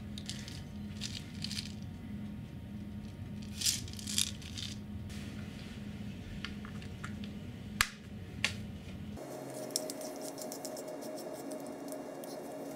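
Scattered clicks, taps and rattles of plastic and metal parts being handled and fitted together as a BB machine gun is assembled, with a sharp click about eight seconds in.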